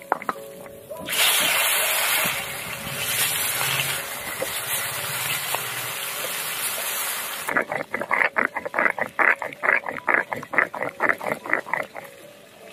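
Pieces of tuna sizzling as they fry in hot oil in an iron wok for about six seconds. Then comes the rhythmic scrape of a stone roller rocked back and forth on a flat grinding stone (sil-nora), grinding dried and green chillies into paste, about four strokes a second.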